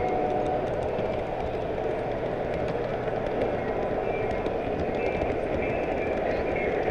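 Model train rolling along its track, a steady running rumble of wheels on rail with faint clicks over the track.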